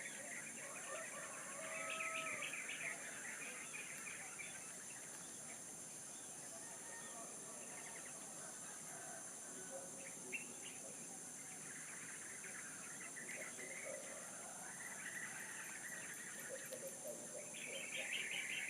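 Several birds chirping and calling on and off, busiest near the start and again near the end, over a steady high-pitched buzz.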